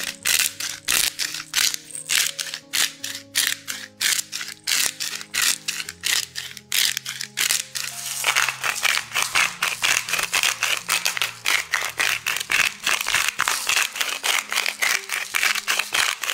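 A spice shaker of Tajín chili-lime seasoning is shaken over the salad, rattling about three times a second and faster and denser from about eight seconds in. Quiet background music runs underneath.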